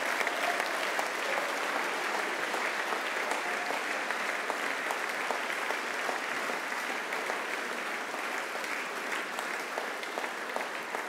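Large seated audience applauding steadily with dense, even clapping that eases off slightly toward the end.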